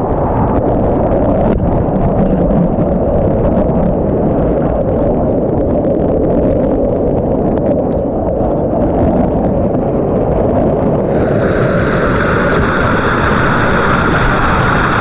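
Waterfall rushing, a loud steady rumble of falling water heavy in the low end; about eleven seconds in, a higher hiss joins it.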